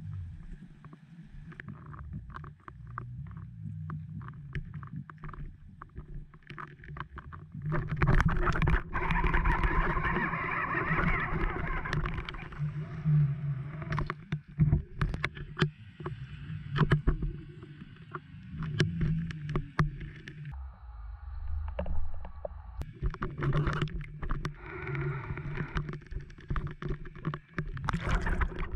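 Muffled water noise picked up by an underwater camera, a low rumbling wash with scattered sharp clicks and knocks. It swells louder for a few seconds about a third of the way in and again near the end.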